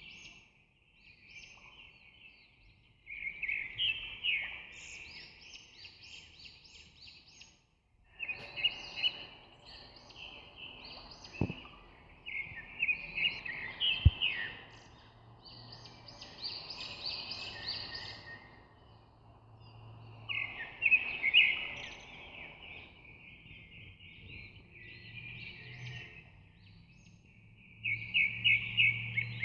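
Birds chirping and chattering in repeated bursts of rapid, high calls, with two sharp clicks about halfway through.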